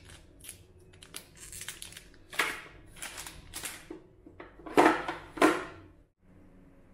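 Plastic wrappers on hotel toiletry packets crinkling and rustling as they are handled, in a run of short rustles with the loudest about two and a half seconds and five seconds in. The rustling stops abruptly just after six seconds, leaving faint room tone.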